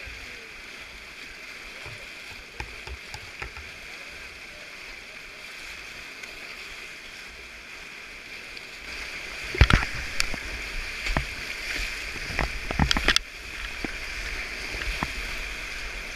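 Steady rush of a flooded whitewater rapid. From about nine to thirteen seconds in comes a run of loud knocks and splashes.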